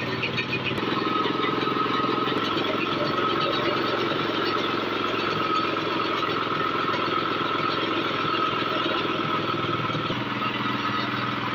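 Small petrol engine driving a grain grinding mill, running steadily while beans for akara are fed into the hopper and ground. A steady whine rides over the engine noise through most of it.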